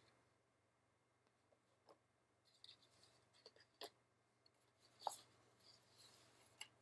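Near silence with a few faint, scattered ticks and rustles of cardboard packaging inserts being handled.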